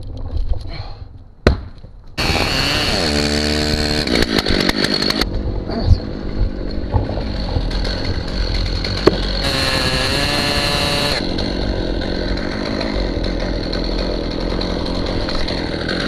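A gas chainsaw comes on loud about two seconds in and runs at high revs, drops back to a lower idle, then revs up again briefly around ten seconds in. A sharp click is heard shortly before it starts.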